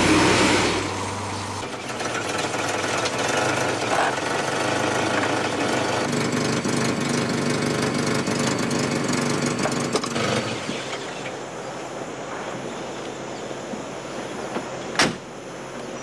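Volvo 240-series saloon's engine running steadily as the car pulls up and sits, the engine sound falling away about ten seconds in. A single sharp knock near the end.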